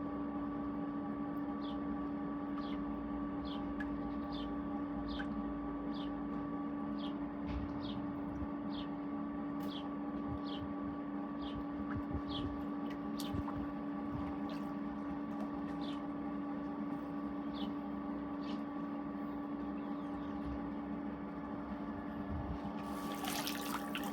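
Pool vacuum's pump motor running with a steady hum over moving water. A short, high, falling chirp repeats about one and a half times a second, and a brief rush of noise comes near the end.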